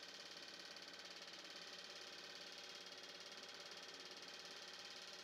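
Near silence: a faint, steady background hiss with a light hum between narration lines.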